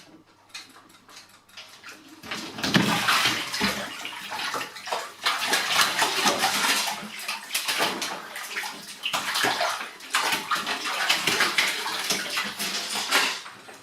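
Water splashing and sloshing in a bathtub in rapid, irregular splashes, starting about two seconds in.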